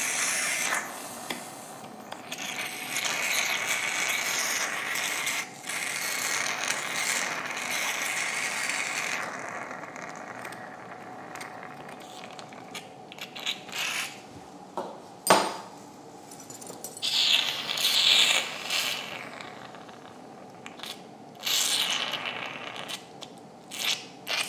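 Surgical instruments at work in a dog's opened nasal cavity during a dorsal rhinotomy. A hissing stretch runs through the first third, then come scattered sharp metallic clicks and short scrapes.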